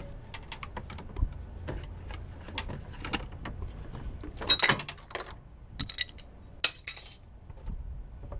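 Metal hand tools and parts being handled: scattered clicks and knocks, with louder jingling clinks about halfway through and again a little later.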